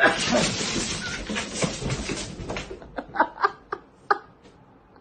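A person sneezes loudly, followed by laughter that ends in a few short bursts about three seconds in.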